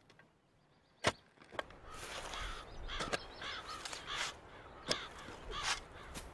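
A sharp click about a second in, then crows cawing: a run of harsh, repeated calls.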